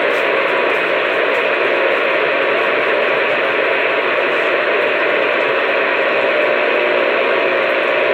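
Steady loud hiss of radio static, an open channel carrying no voice.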